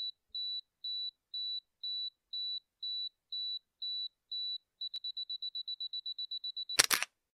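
A camera's self-timer beeping, a high tone about twice a second, then switching to rapid beeps about five seconds in, ending in a loud shutter-and-mirror click just before seven seconds.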